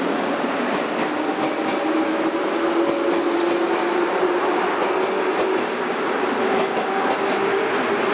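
Commuter electric train running past close by: a steady noise of wheels on rail with faint held tones from the motors.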